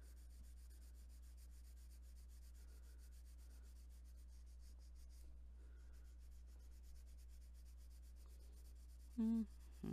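Faint rubbing and scratching of a watercolor crayon being scribbled across coloring-book paper, over a steady low hum. Near the end there is a short voiced sound, twice.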